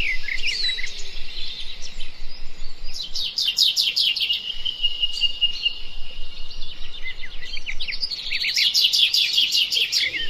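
Birds singing: bursts of rapid, high chirping trills that come back every few seconds, with a held high whistled note between bursts.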